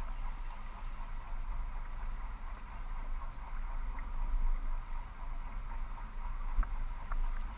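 Wind buffeting the microphone aboard a sailing yacht under sail, a steady low rumble that rises and falls, with a faint steady hum and a few short, faint high squeaks.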